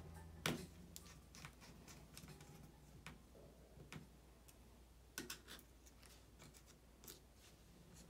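Faint scattered clicks and taps of a small screwdriver and a flex cable being handled in an opened laptop's aluminium case. The sharpest click comes about half a second in, and a quick pair comes about five seconds in.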